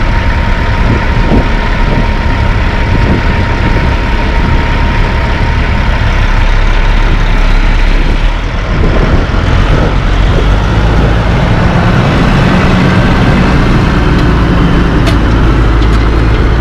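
Western Star dump truck's diesel engine running as the truck and its dump trailer pull forward and drive past. The engine runs loudly throughout, with a steadier, deeper engine note coming in after about ten seconds.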